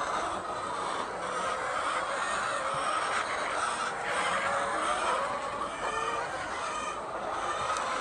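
A flock of laying hens clucking and chattering, many birds at once in a steady din, with a few single calls standing out in the second half.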